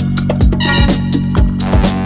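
Upbeat funky music with a steady driving beat, kick drum about four times a second under a sustained bass line and cymbals.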